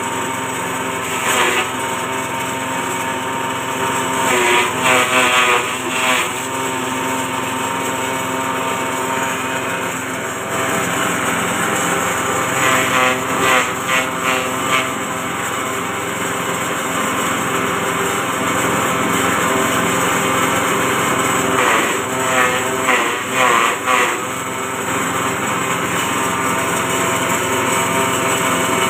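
Small petrol engine running steadily at speed, driving a forage chopper. Three times, a few seconds in, around the middle and about three-quarters through, the sound swells and wavers for a couple of seconds as grass stalks are fed in and cut by the blades.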